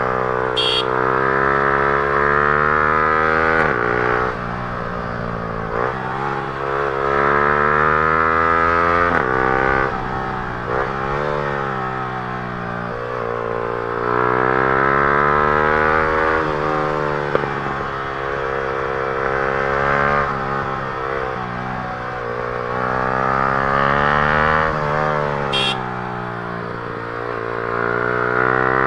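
Yamaha R15 M's single-cylinder engine through an Akrapovic full-system exhaust, revving up under throttle and falling back off it, over and over, with a few sudden breaks in the note.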